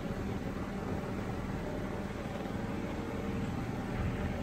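A boat's engine running steadily, a low even hum.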